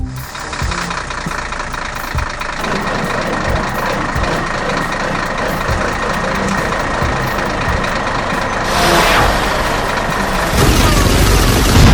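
Heavy vehicle engine running steadily, growing louder in two steps over the last few seconds.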